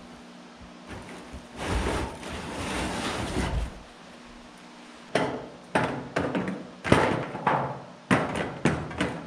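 Plastic IBC tote bladder scraping for about two seconds as it is dragged out of its steel cage, followed by a string of seven or eight sharp knocks and clunks as the tote is handled.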